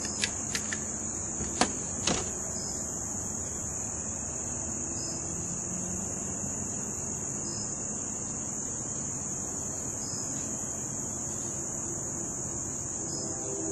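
A steady, high-pitched chorus of insects, most likely crickets, runs unbroken. A few sharp clicks come in the first two seconds.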